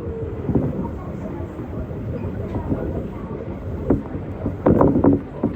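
Tokyo Monorail train running with a steady low rumble. A few short, louder sounds come near the end.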